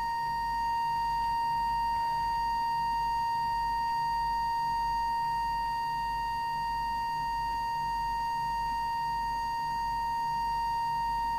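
Steady, unwavering audio test tone, a pure beep-like note with faint overtones, used to set the FM transmit deviation on a CB radio during alignment. A faint low mains hum runs underneath.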